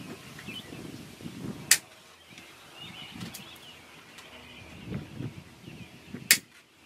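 Two sharp snips of cutters trimming the ends of plastic zip ties, about four and a half seconds apart, between rustling of cable being handled.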